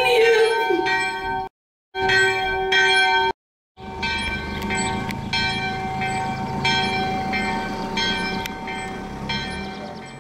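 Church bell rung by hand with a rope, swinging and striking again and again with a long ringing tone between strokes. The sound breaks off twice briefly in the first few seconds and fades away near the end.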